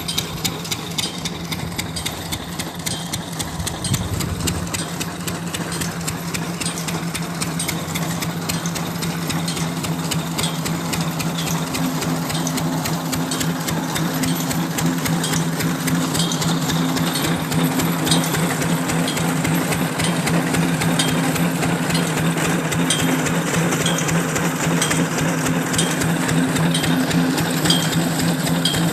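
Engine-driven soil boring rig running steadily, a constant hum with a fast mechanical clatter, and a sharper tick about once a second in the second half.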